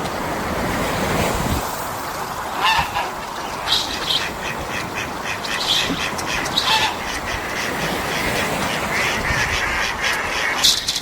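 Waves washing on a beach with a steady hiss, with wind buffeting the microphone in the first second or so. Several short bird calls sound over the surf, the loudest about a quarter, a third and halfway in, and once more near the end.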